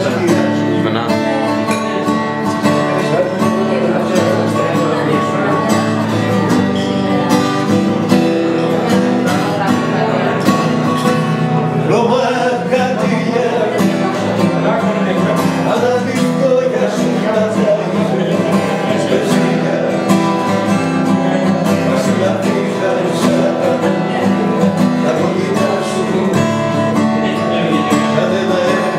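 Acoustic guitar accompanying live singing of a song, steady throughout.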